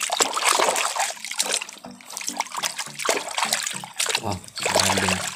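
Water sloshing and splashing as a hand sweeps through a tub of thick soap suds, busiest in the first couple of seconds. A run of short, low pitched notes sounds over it in the second half.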